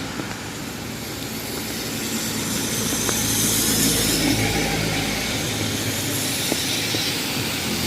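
Street traffic passing on a wet road: engines and tyre hiss, swelling about three to four seconds in as a vehicle goes by.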